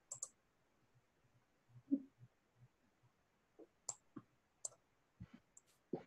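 Faint, scattered clicks from working a computer to unmute a caller on a video call, about half a dozen spread over several seconds, with near silence between them.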